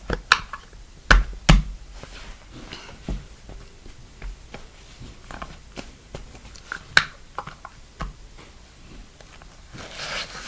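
A plastic lid pressed and worked into slime on a wooden floor: a few sharp knocks in the first couple of seconds and two more later on, with faint scraping and rubbing between them.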